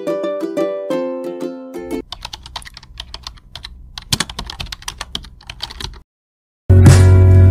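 Rapid, irregular clicks of computer keyboard typing over a low hum, after about two seconds of plucked ukulele-like music. The clicks stop, and after a short silence loud music with a heavy bass starts near the end.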